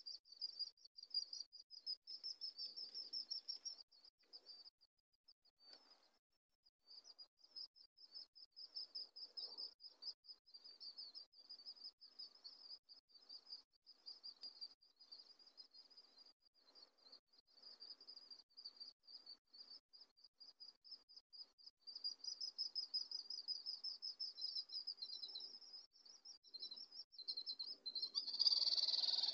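Wild animal calls: a high-pitched, rapidly pulsing trill that runs almost without a break and swells louder and fuller near the end.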